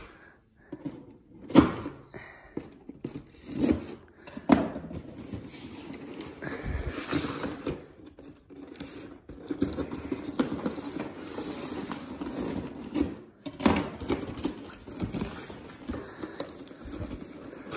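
Cardboard box and plastic packaging being handled and opened: rustling and scraping, broken by several sharp knocks and taps.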